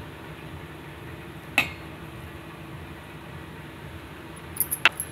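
Light clinks of a kitchen utensil against a cooking pot as saffron milk is added to the pulao: one sharp clink about a second and a half in and a few small clicks near the end, otherwise quiet.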